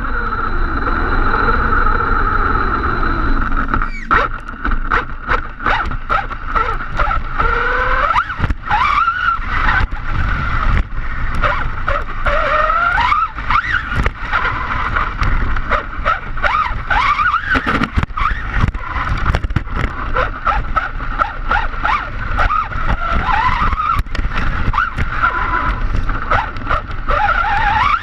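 Arrma Big Rock RC monster truck's 2050kv brushless motor on 6S, running with a high whine that rises and falls in pitch as the throttle changes. It plays over a steady low rushing noise, with frequent sharp knocks and clicks.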